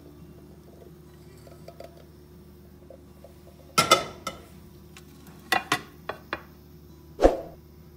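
Dishes being handled: a ceramic serving platter and cooking pot knocking and clinking against each other and the countertop, a few sharp knocks with the loudest a little under four seconds in and another just after seven seconds.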